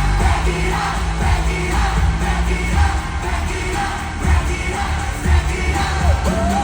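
K-pop song with singing over a heavy bass beat, played loud through a concert venue's speakers during a sound check.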